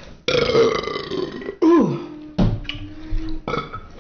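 A person burping loudly several times in a row. One burp drops sharply in pitch, and another holds a low, steady pitch for about a second.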